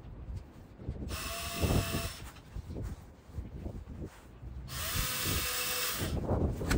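Cordless electric drill run in two short bursts, about a second each, working at a hard plastic storage box to fix a mounting bracket.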